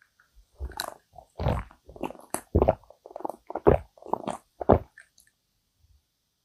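Close-miked gulping of iced americano from a glass mug: a run of about ten wet swallows, roughly two a second, stopping about five seconds in.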